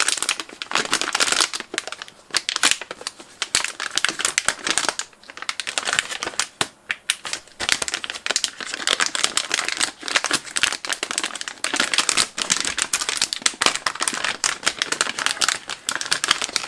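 Clear plastic bag crinkling and rustling continuously as hands work an LCD controller board out of it.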